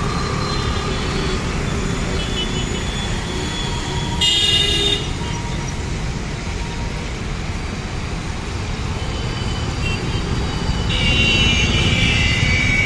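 Steady city traffic of motor scooters and cars passing on a rain-wet road. A vehicle horn sounds briefly about four seconds in, and a longer honk of about two seconds comes near the end.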